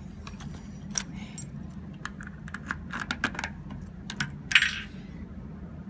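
Keys jangling and clicking against the chrome key-locked fuel cap of a Kawasaki Zephyr 1100 as it is unlocked and opened: a string of sharp metallic clicks, then one short, louder rasp about four and a half seconds in. The bike's air-cooled inline-four idles steadily underneath.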